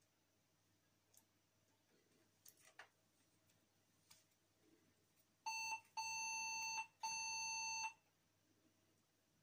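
Three electronic beeps at one steady pitch, a short one and then two longer ones, with faint clicks of plastic connectors being handled before them.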